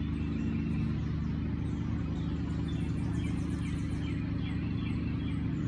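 Steady low droning hum on an unchanging pitch, with faint short high chirps in the middle.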